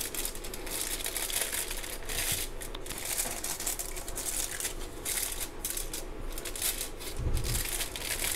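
Continuous crinkling and rustling of something being handled, with one low thump about seven seconds in.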